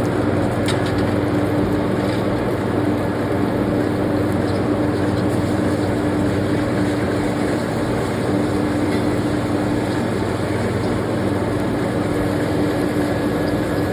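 Steady mechanical drone of a machine motor running without a break, with a steady hum underneath.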